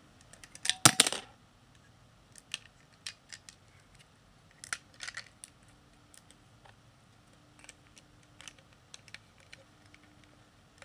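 Plastic Lego pieces clattering and clicking as they are handled: a loud rattle of pieces about a second in, then scattered light clicks.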